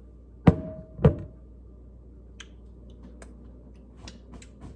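Two knocks on a glass mixing bowl about half a second apart, each leaving a short ringing tone, followed by faint light clicks and taps.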